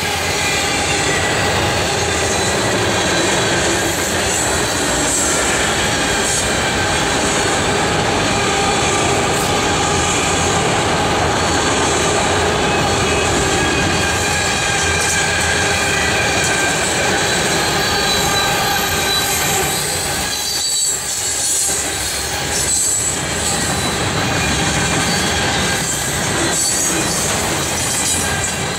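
Freight train cars rolling past on the Union Pacific line, a steady loud rumble and clatter of wheels on rail with several sustained high squealing tones from the wheels.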